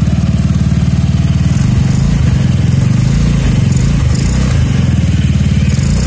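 GY6 150cc single-cylinder four-stroke go-kart engine running steadily, with a rapid even firing beat; from about a second and a half in its note becomes uneven.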